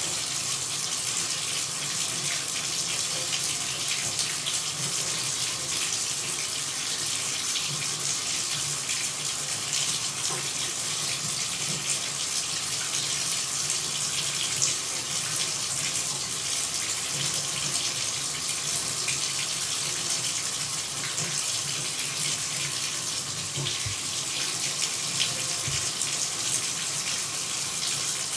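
Running water: a steady, even hiss with fine splashing.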